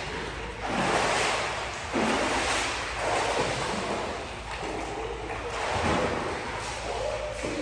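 Swimming pool water splashing and churning in a series of surges that swell and fade.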